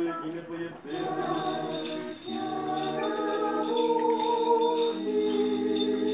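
Orthodox liturgical chant sung a cappella by several voices in harmony, with long held chords that change a few times.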